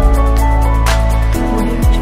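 Background music with a steady beat: a bass line and held chords, quick hi-hat ticks, and a snare hit about a second in.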